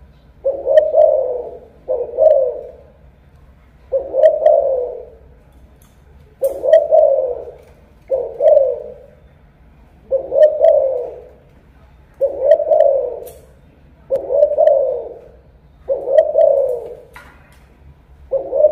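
Caged Malaysian-line spotted dove cooing over and over, one short low coo phrase about every two seconds.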